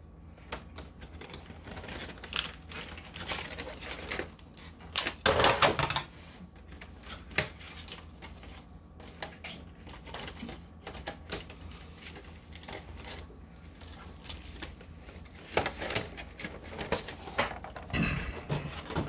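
Cardboard box and plastic insert of a Pokémon card collection box being handled and emptied: a string of small clicks, taps and rustles, louder about five seconds in and again near the end.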